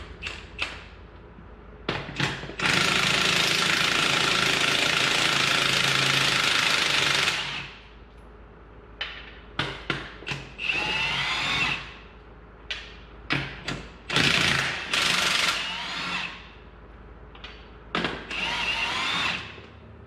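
Impact wrench hammering the lug nuts loose on a John Deere tractor's front wheel: one long burst of about five seconds, then several shorter runs a few seconds apart, some with a whine that rises and falls as a nut spins off.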